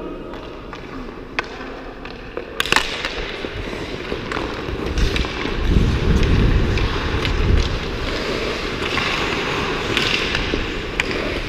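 Ice hockey skate blades scraping and carving on the ice, with sharp clacks of sticks and puck, heard from a helmet-mounted camera. A few light clacks come first; from about two and a half seconds in a steady scraping hiss sets in as the wearer skates, with a heavier rumble between about five and eight seconds in.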